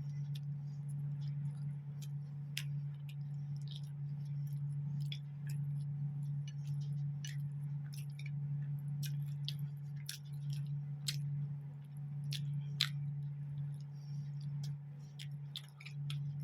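Close-up chewing of mutton curry and roti, with frequent small, irregular wet clicks and lip smacks, over a steady low hum.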